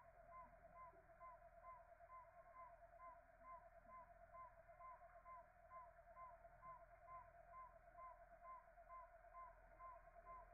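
Faint, slowed-down outdoor sound from a phone's slow-motion recording: a steady wavering tone with a short chirp repeating about twice a second, like insects calling in the grass, pitched down.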